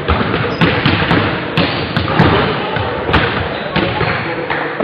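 A basketball being dribbled on a sports hall floor, irregular echoing thuds, over indistinct voices of players and spectators in the hall.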